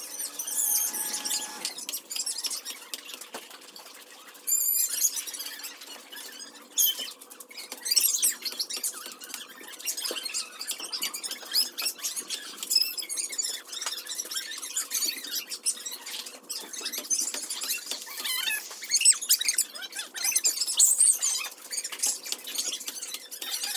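A large knife chopping into young green coconuts in sharp, irregular knocks. High-pitched chirping goes on throughout.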